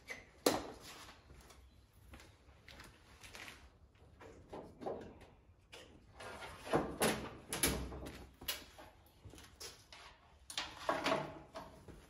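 Scattered clicks, knocks and clatter of hands working at the battery in a Land Rover's engine bay, unclipping a trickle charger's leads. A sharp click comes about half a second in, and there are clusters of clattering knocks in the middle and near the end.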